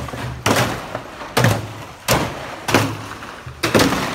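Water glugging out of tipped plastic five-gallon water cans into a trough, coming in heavy gulps a little under a second apart as air is drawn back into the cans.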